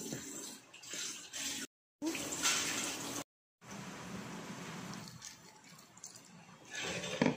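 Hands rubbing and mixing flour and liquid in a glass bowl. Two short gaps of dead silence break it up. After that, liquid pours from a measuring jug onto the crumbly dough, steadiest about four to five seconds in.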